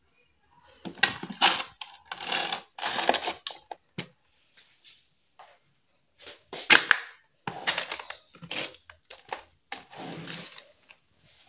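Plastic food containers and plastic bags of frozen maize being shifted and packed into a freezer: irregular crinkling, scraping and knocks of plastic on plastic, with a lull partway through.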